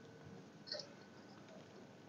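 Near silence: room tone, with one faint, brief sound about two-thirds of a second in.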